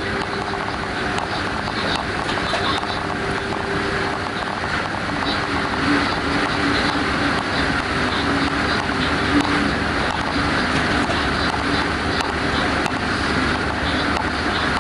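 Class 186 electric locomotive under way: steady rolling and rail noise with a faint motor whine that moves to a lower pitch about five seconds in.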